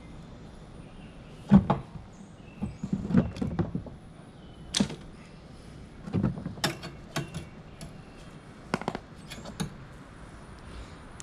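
A wrench clicking and knocking against metal while loosening a lawn mower engine's oil drain plug: irregular, separate knocks, the loudest about one and a half seconds in.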